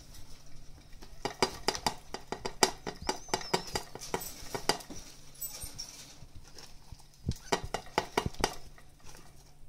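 Baby degus climbing on a wire-mesh cage: quick runs of metallic clicks and rattles as their claws grip the wire, with a quieter stretch in the middle. A brief high squeak about three seconds in.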